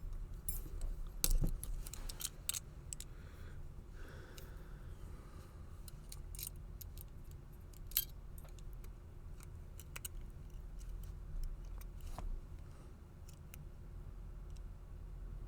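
Faint, irregular metallic clicks and taps of a wire pick and a tension wrench working the levers inside a four-lever padlock, with one sharper click about eight seconds in.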